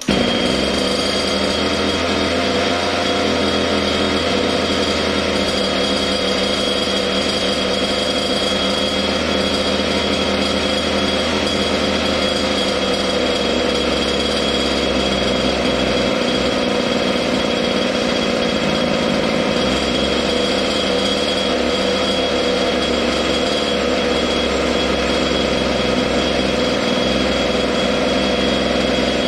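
Water-cooled Zenoah G300PUM two-stroke engine pull-started and catching at once, then running steadily at a fast idle with the idle screw turned well in. The owner finds the low end too rich.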